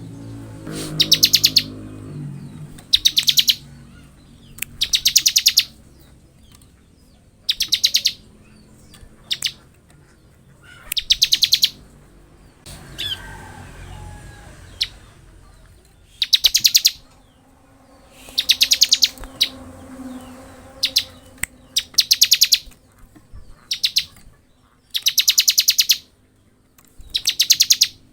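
Bar-winged prinia (ciblek) singing in its fast 'ngebren' style: a series of short, rapid high-pitched ticking trills, each under a second long, repeated every second or two, with one longer pause midway.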